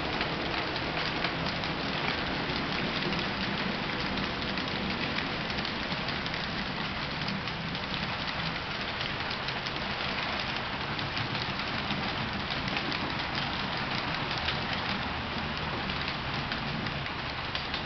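Model railroad coal train's hopper cars rolling past on the track: a steady rumble with rapid, continuous clicking of the wheels over the rail joints.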